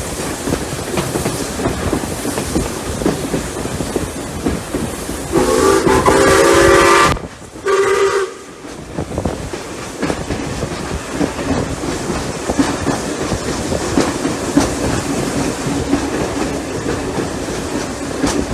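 Steam-hauled train running with steady rail clatter. About five seconds in, a steam locomotive whistle sounds loudly for about two seconds, cuts off, and gives a short second blast a moment later.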